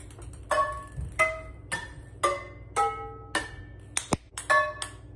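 Background music: a melody of short, ringing notes at a steady pace of about two a second, over a low hum. Just after four seconds in, a single sharp click as a ping pong ball strikes the metal water bottle.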